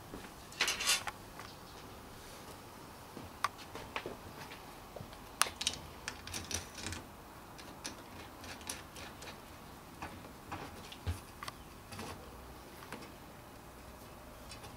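Scattered light clicks, taps and knocks from a wooden antenna boom and its elements being handled and fitted together, with a brief rustle about a second in.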